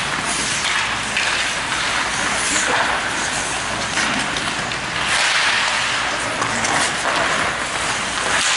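Ice hockey play on an indoor rink: a steady scraping hiss of skate blades on the ice, with stick and puck noises and indistinct voices.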